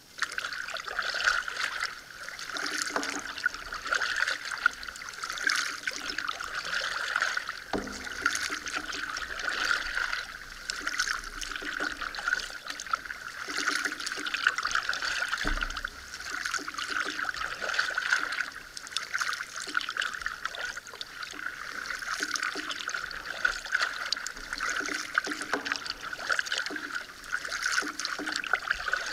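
Water trickling and splashing as a double-bladed paddle strokes through calm lake water and drips off the blades, with a couple of short knocks about a third and half way through.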